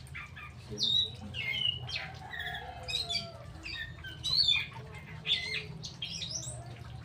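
A songbird calling in short, separate chirps and squawky notes, a few each second, over a steady low hum.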